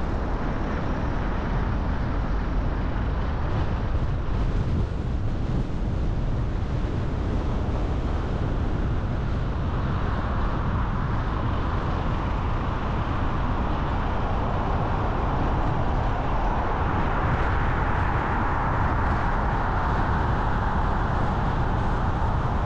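A car driving on city streets: steady road noise and low rumble, with a higher hiss that grows louder from about halfway in.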